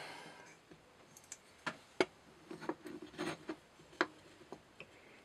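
Scattered small clicks and knocks, about eight over three seconds with the sharpest about two seconds in, from a folding knife being handled and turned over on a microscope stage.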